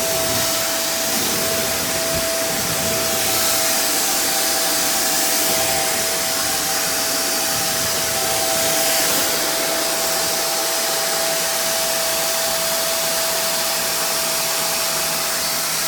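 Hoover React Professional Pet Plus upright vacuum running steadily on bare floor: a constant rush of air with a steady whine from the suction motor.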